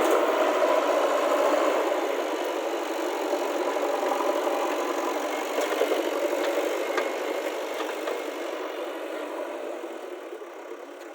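A vehicle engine running steadily, gradually fading away.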